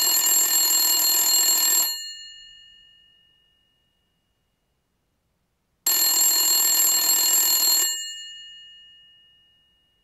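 Old desk telephone's electromechanical bell ringing twice, each ring lasting about two seconds and the second about four seconds after the first ends. The bell goes on humming and fades after each ring.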